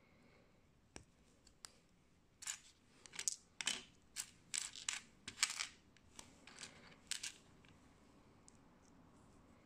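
Loose Sembo plastic building bricks clattering and clinking as a hand sifts through the pile of pieces on a baseplate: a couple of single clicks, then a run of rattles lasting about five seconds.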